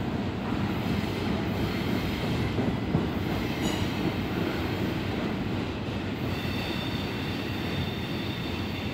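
Intermodal freight train's double-stack container well cars rolling past, a steady rumble of steel wheels on the rails. A faint high wheel squeal comes in about six seconds in.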